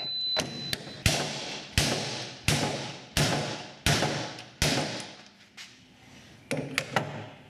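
A digital torque adapter's short high beep, then six evenly spaced metal strikes about two-thirds of a second apart, each ringing as it dies away. A few lighter clicks follow near the end.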